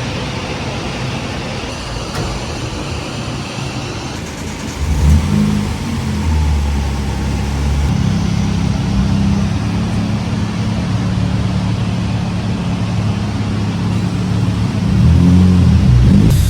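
Mitsubishi 4G93 MIVEC 1.8-litre inline-four running under load on a chassis dynamometer. It gets much louder about four to five seconds in and stays loud.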